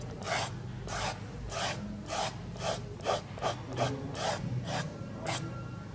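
Fingers rubbing soft pastel into paper to blend and soften it, in about a dozen short rubbing strokes that come quicker toward the end.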